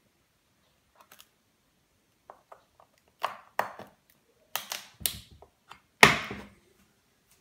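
Fingers handling plastic plugs and wires inside an electric longboard's battery enclosure: scattered clicks and knocks that grow louder, ending in a sharp snap about six seconds in.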